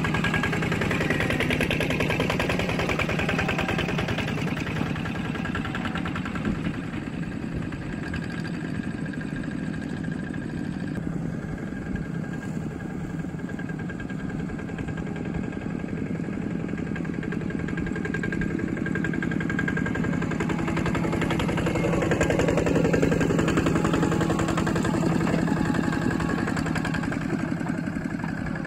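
Several two-wheel walking tractors' single-cylinder diesel engines chugging steadily as they pull loaded rice trailers, swelling louder for a few seconds about three-quarters of the way through.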